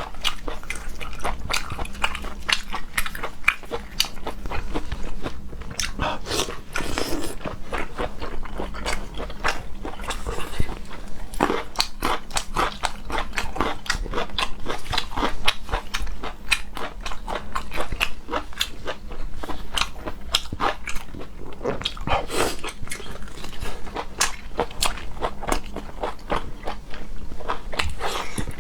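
A person chewing and biting food in a mukbang, with dense, irregular wet clicks and crunchy crackles of mastication throughout.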